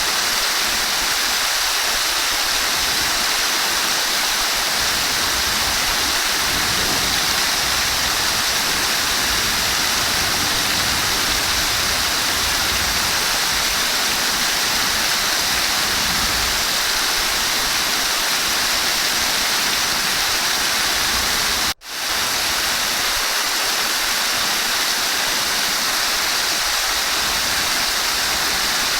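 Flowing water rushing steadily and evenly. About three-quarters of the way through, it cuts out for an instant and comes straight back.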